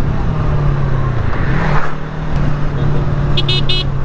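Motorcycle engine running steadily under way, easing briefly about a second in. A few short, rapid high-pitched beeps come in near the end.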